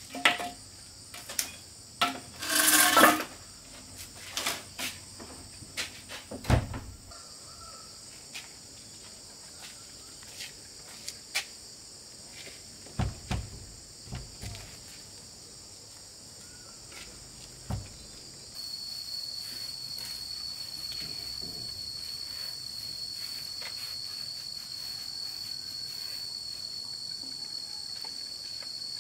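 Insects buzzing in a steady high-pitched chorus, which grows louder with a single held high tone from about two-thirds of the way through. In the first several seconds there are knocks and a brief loud scrape from a wooden plank door being handled and fitted.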